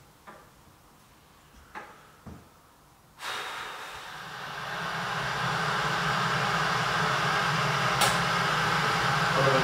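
A few light knocks of kitchenware, then a kitchen appliance switched on about three seconds in, its steady noise growing louder over the next few seconds and holding.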